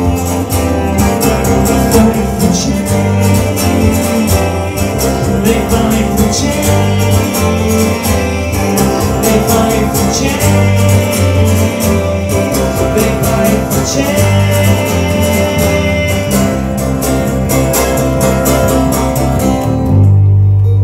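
Live acoustic band music: a strummed acoustic guitar keeps a steady rhythm over a bowed cello and a bass guitar. About 20 seconds in, the strumming stops and a low note is left ringing.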